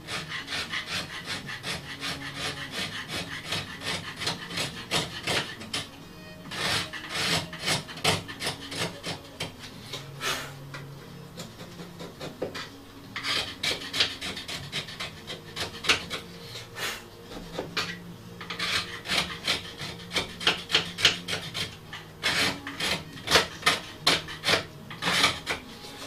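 A small hand file rasping on the wood of a handmade music box, in quick strokes that come in runs of a few seconds with short pauses between.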